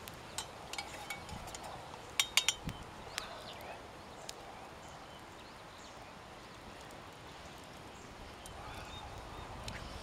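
Metal camp mugs and cookware clinking: a run of light clicks and taps over the first few seconds, with a few short ringing metallic clinks about two seconds in.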